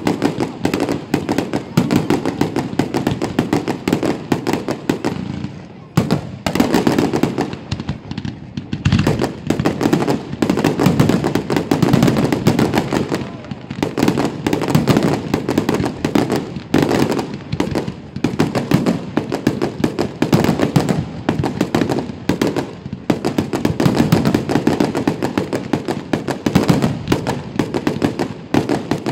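Aerial fireworks going off in a rapid, near-continuous barrage of bangs and crackles, with brief lulls about six and nine seconds in.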